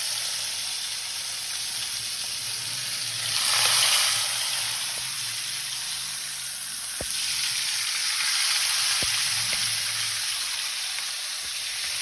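Marinated chicken sizzling as it fries in hot oil on a high flame, with a steady hiss that swells louder about three and a half seconds in and again in the second half. A few light clicks come late on.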